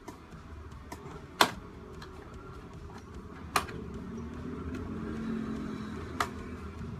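Three sharp plastic clicks, spaced a couple of seconds apart, as the laptop cooler's plastic housing is pried open, over a faint low hum.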